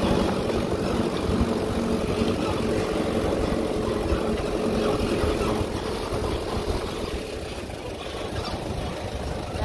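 Vehicle engine running steadily with a low hum; its steady tones fade and it eases off about six seconds in.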